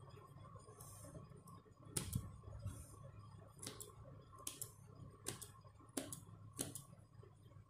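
Small hand-held thread snips cutting away the excess fabric around an embroidered patch. Faint, sharp snips come about once a second, starting about two seconds in, some of them doubled.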